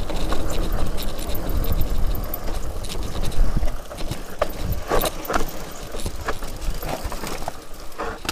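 Enduro mountain bike rattling and clattering down rocky singletrack: knocks and clicks from the bike and tyres over rock, with wind buffeting the camera microphone, heavier in the first half.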